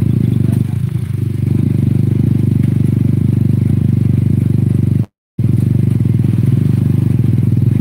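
A motorcycle engine running steadily close by, with a fast, even firing beat, as heard while riding on the vehicle. The sound cuts out completely for a moment about five seconds in.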